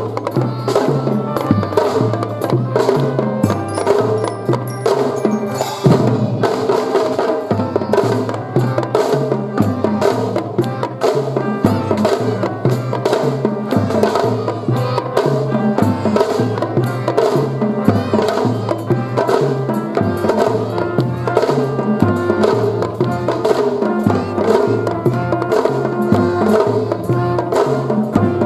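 Children's drum-and-fife band playing a march tune, with drums striking a steady beat under the melody.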